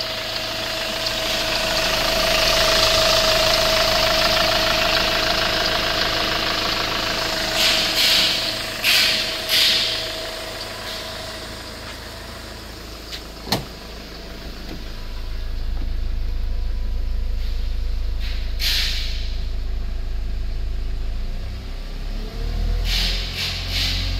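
Hyundai iLoad's 2.5-litre four-cylinder turbodiesel idling steadily. A few short noisy bursts come around a third of the way in, and a single sharp click about halfway through.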